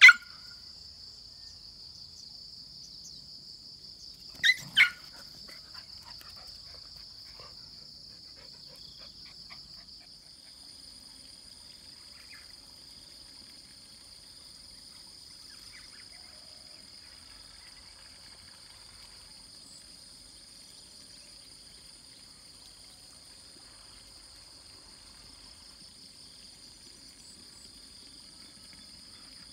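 A dog barks at the start and twice more in quick succession about four and a half seconds in, over a steady high chorus of insects. About ten seconds in, a second, higher insect trill joins and carries on.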